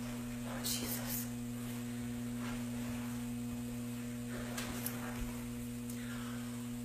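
Steady electrical mains hum, with a couple of brief faint rustles about a second in and again near five seconds.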